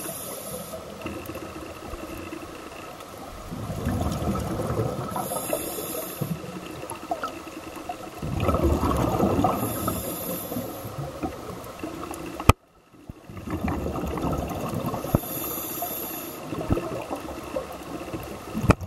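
Scuba breathing heard underwater: a short hiss from the regulator on each breath in, then a low rush of exhaled bubbles, repeating about every five seconds. A sharp click and a brief dropout come about two-thirds of the way through.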